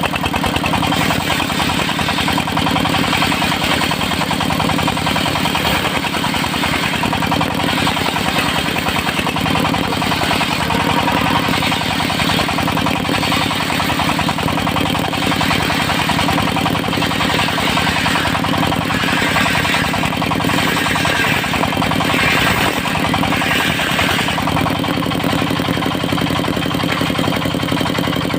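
Engine of a portable circular-saw sawmill running steadily at constant speed.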